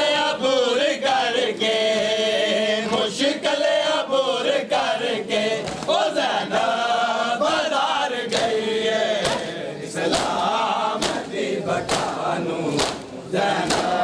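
Men chanting a mourning lament together while beating their chests with their hands (matam). The slaps fall into an even beat of about two a second in the second half.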